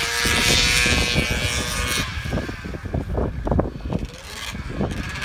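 Arctic Cat ZR440 snowmobile's two-stroke engine running at high revs, a steady note for about two seconds that then breaks up into an uneven sputter. The owner takes the top-end sputter as a sign it still needs fuel pump work and a carb tune.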